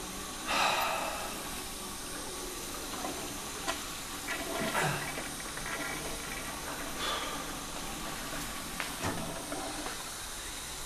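Water running steadily from a washroom tap into a basin, with a few scattered knocks and light clicks over it, the strongest about half a second in.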